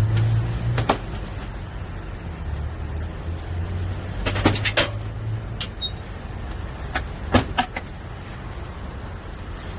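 Cast-iron bungeoppang molds being worked: sharp clacks as the hinged fish-shaped plates are opened, closed and turned. The clacks come at irregular intervals, bunched in the middle, over a steady low rumble.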